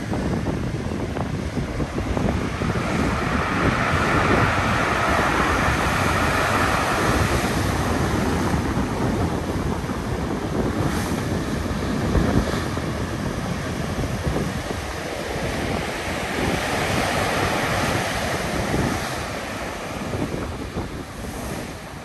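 Storm surf: heavy waves breaking and washing up the beach in a continuous rush, swelling twice as bigger waves come in, a few seconds in and again near the end. Wind buffets the microphone.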